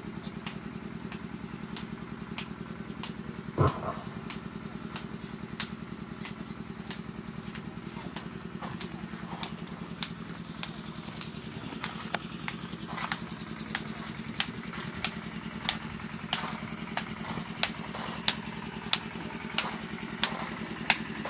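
A steady low engine hum, with faint sharp clicks at an even pace of roughly one or two a second and a short louder knock about four seconds in.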